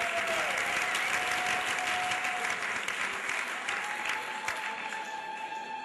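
Audience applauding in a hall. A long held high note sounds over the clapping twice.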